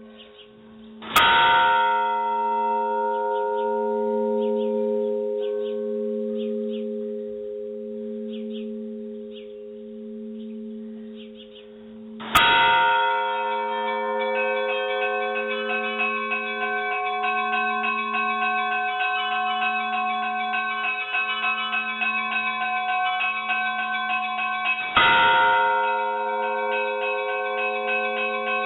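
Large church bell struck three times, about twelve seconds apart, each stroke ringing on with a long humming tone that wavers slowly. After the second stroke, quick ringing of higher bells keeps going under it.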